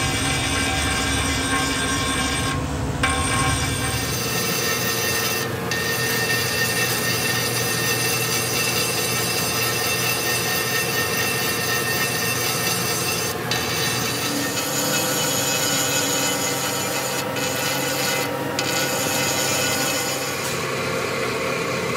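Steady rasping and scraping of a tool working the metal of a Fiat four-cylinder engine block under repair. A low hum underneath drops away about four seconds in.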